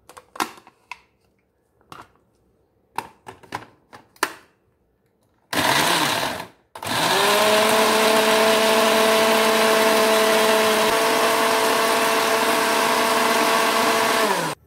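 Countertop electric blender grinding a spice paste of garlic, shallots, candlenut and shrimp paste. First come a few clicks and knocks as the plastic jar is handled and seated on the base. Then the motor runs briefly for about a second, stops, and starts again to run steadily for about eight seconds before switching off near the end.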